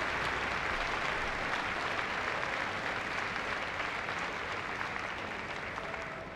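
A large audience applauding, a dense even clapping that begins to die down near the end.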